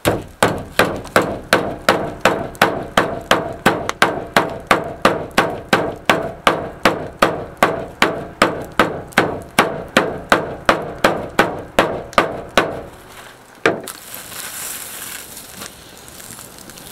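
A metal meat pounder beating venison flat through plastic wrap on a pickup's tailgate: about thirty steady strikes, a little over two a second, stopping about 13 seconds in after one last blow. Then the plastic wrap rustles as it is lifted off the flattened meat.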